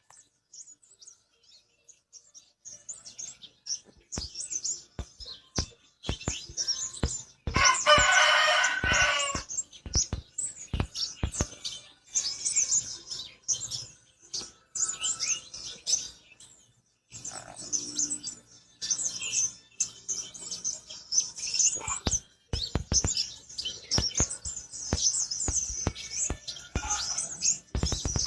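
Pentis kumbang, a tiny songbird, calling in repeated bursts of rapid high-pitched chirps and twitters, with sharp clicks among them. A rooster crows about eight seconds in.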